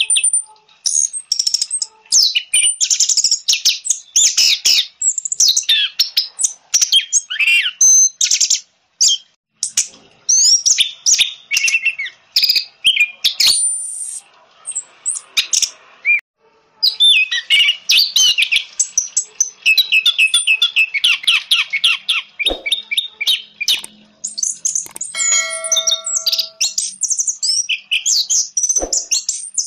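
Orange-headed thrush (anis merah) singing a fast, varied song of chirps, trills and whistles, with short pauses. A brief steady ringing tone sounds a few seconds before the end.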